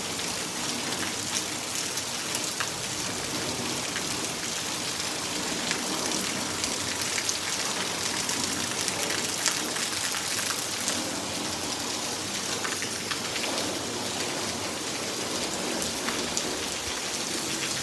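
Heavy rain falling steadily, a dense patter of raindrops on surfaces.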